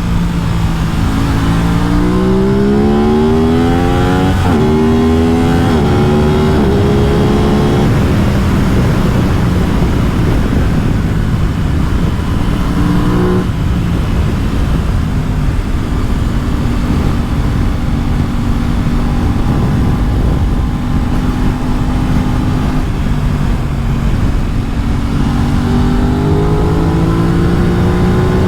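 Aprilia RS 660's parallel-twin engine under way. It revs up through the gears with a quick shift about four seconds in, then runs at a steady pitch through the middle, and picks up again near the end.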